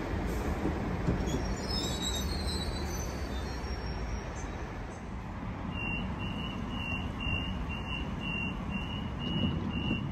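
Electric suburban train at a station platform: a steady rumble with a brief high squeal about two seconds in, then from about halfway a rapid series of high beeps, about two or three a second, like a train's door-closing warning.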